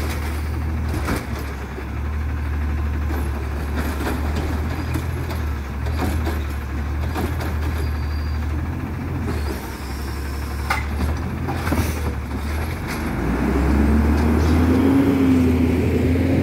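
Automated side-loader garbage truck running while its hydraulic arm lifts and tips a wheeled cart, with several clanks and knocks. About thirteen seconds in the engine revs up and gets louder as the truck pulls away.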